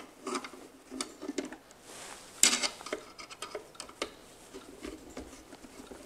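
Screwdriver turning the small screw that fastens a wireless camera to its metal mounting bracket: irregular small metallic clicks and scrapes, with a louder rattle about two and a half seconds in.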